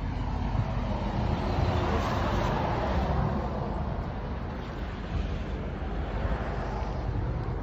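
Chevrolet Camaro SS's 6.2-litre V8 idling steadily, already warmed up rather than on a cold start.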